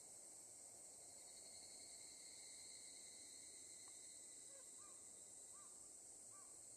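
Near silence: a faint steady high hiss, with three faint short chirps in the second half.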